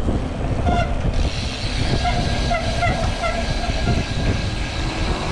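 Wind buffeting a handlebar-mounted action camera's microphone and bike tyres rolling over a concrete path, a steady heavy rumble, with a few brief high-pitched tones breaking through in the middle.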